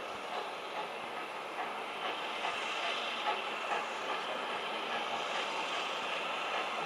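Lancashire & Yorkshire Railway No. 957, an 0-6-0 steam locomotive, moving slowly over pointwork with steam hissing and its wheels clicking over the rails. The hiss grows louder about two seconds in.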